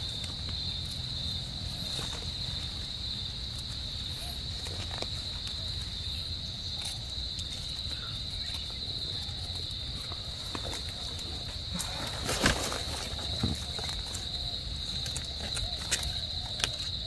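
Steady high-pitched chorus of night insects, with soft rustling and scraping of leaf litter and soil as mushrooms are dug out by hand with a knife; a louder rustle about twelve seconds in.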